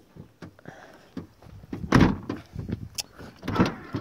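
Volkswagen Caddy's rear tailgate being brought down and pushed shut. There is a heavy thud about two seconds in and lighter knocks near the end, and the latch does not catch.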